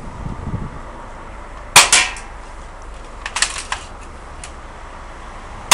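Spring-powered AK47 BB gun firing: a sharp snap about two seconds in and another right at the end, with a quick run of lighter clicks in between.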